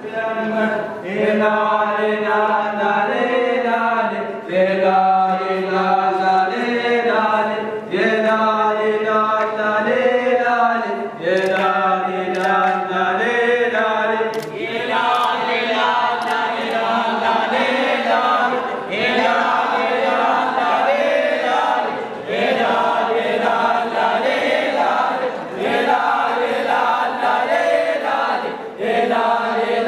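A group of men's voices chanting an Omani razha together, in held sung phrases of about three to four seconds each with short breaks between them.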